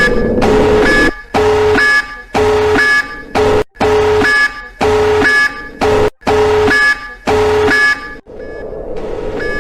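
Emergency-alert-style electronic alarm: a chord of several steady tones beeping on and off about once a second, each beep under a second long, over a steady low rumble. Near the end the beeps stop and only the rumble is left.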